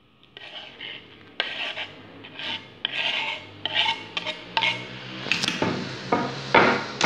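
Knife blade scraping diced tomato across a wooden cutting board into a bowl, in a series of irregular scraping strokes, with a few sharper knocks near the end.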